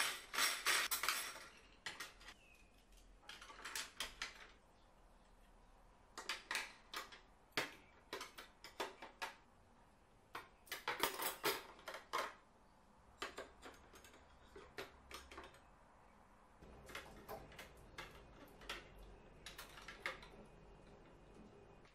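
Metal cutlery (knives, forks and spoons) clinking against each other and the drawer organizer as pieces are picked up and laid into its compartments. The clinks come in irregular handfuls with short pauses between, the loudest right at the start.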